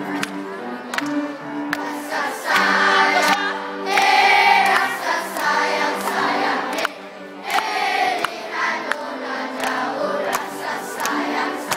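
A large group of young schoolboys singing together as a children's choir, holding and changing sung notes.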